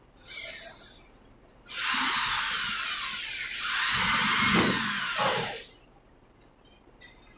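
Power drill running in two bursts: a short one, then a run of about four seconds whose whine wavers in pitch as the load changes.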